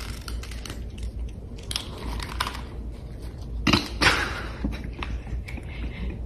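Cats eating dry kibble from a bowl: irregular crunching and crackling bites, with a louder burst of crunching about four seconds in.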